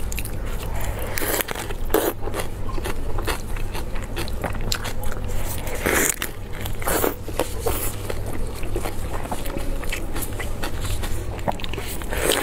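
A person biting and chewing lettuce-wrapped braised pork belly: crisp, crunching bites of the fresh leaves with wet chewing between them. The loudest bites come about two, six and seven seconds in.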